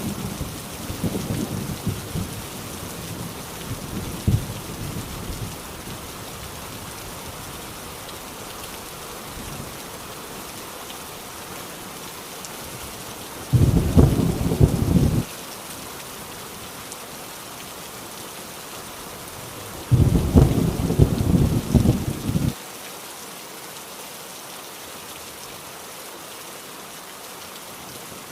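Heavy rain falling steadily, with thunder rumbling. Rumbles fade over the first few seconds, then two louder rolls come about 14 and 20 seconds in, each cutting off suddenly.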